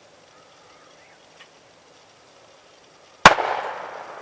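A single shotgun shot about three seconds in, sharp and loud, its report rolling away in a long echo.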